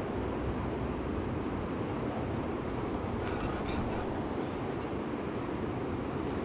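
Steady rush of river water flowing over a shallow, rocky riffle, with a quick run of faint clicks a little past three seconds in.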